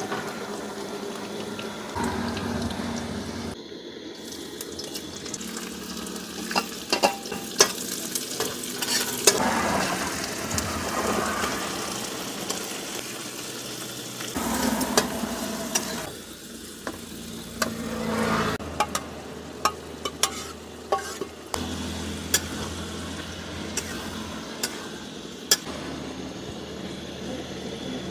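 Paneer and vegetables sizzling as they fry in oil in a metal kadhai, while a metal spatula stirs and scrapes against the pan in frequent sharp clicks.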